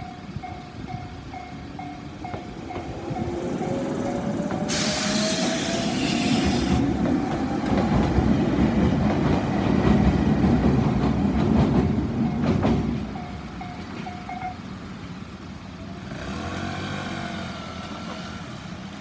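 Japanese level-crossing warning bell ringing in an even ding-ding, about two strikes a second, while a Toyohashi Railway electric train passes: wheels rumbling on the rails, a motor whine rising in pitch, a hiss for about two seconds early on the pass, and a few clacks over rail joints. The bell stops about fourteen seconds in, once the train has gone.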